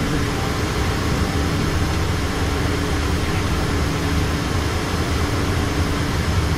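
Steady cockpit noise of a Learjet in flight: the rush of airflow over the cabin and the drone of its jet engines, even and unchanging, with a faint steady low hum.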